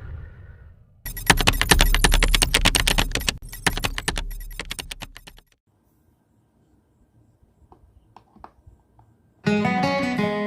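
Music with a dense, fast clicking beat that fades out about five seconds in. A gap of near silence follows, broken by a few faint clicks, and plucked guitar music starts near the end.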